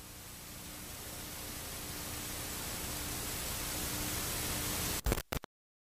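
Television static: a steady hiss with a faint underlying hum, slowly growing louder, then cut off by a few sharp clicks about five seconds in.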